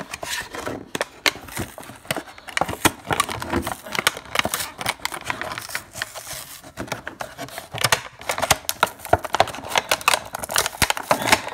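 Clear plastic blister packaging of a boxed action figure crinkling and crackling as hands pull and tear it open: a dense, irregular run of sharp crackles and clicks.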